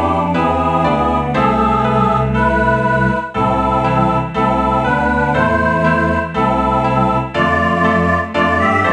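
Computer (MIDI) playback of a four-part choral arrangement in organ-like synthesized tones: held chords that change about once a second, each followed by a brief dip before the next.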